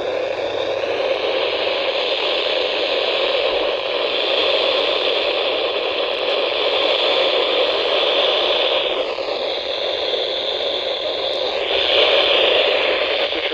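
Static from a weather-band radio receiver: a steady, loud hiss with no program audio getting through, which dips slightly in the upper range about two-thirds of the way in and then comes back.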